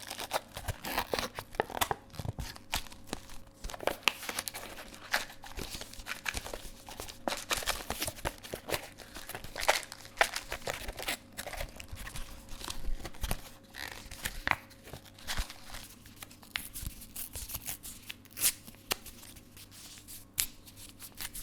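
Plastic film wrapper crinkling and tearing as it is stripped off a cup noodle pot, then the cup's lid peeled open, with irregular crackles throughout. Near the end, small individual hand-wipe packets are torn open.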